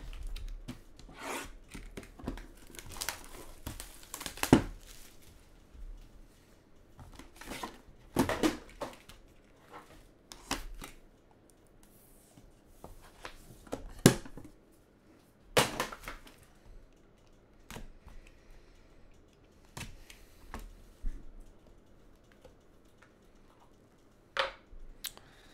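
Plastic shrink wrap being torn and crumpled off a sealed trading-card box, then the box's hinged lid opened and the cards handled, giving scattered sharp clicks and short rustles.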